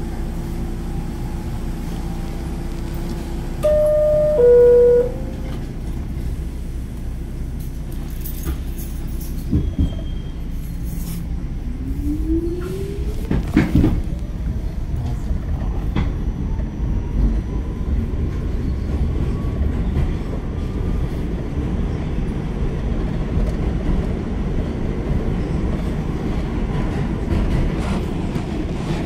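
Subway train's two-note descending door chime, followed by a couple of clunks as the train pulls out. The car then rumbles along with a traction-motor whine rising steadily in pitch as it accelerates.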